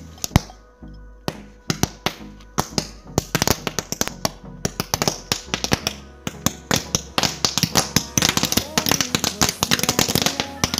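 Hundreds of toy-pistol roll caps going off in a petrol-fed fire: scattered sharp snaps at first, becoming a dense, rapid crackle of pops from about three seconds in, densest near the end.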